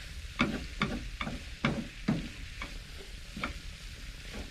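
Wooden spoon stirring and scraping a thick mince-and-vegetable filling around a non-stick frying pan, a short scrape or knock every half second or so.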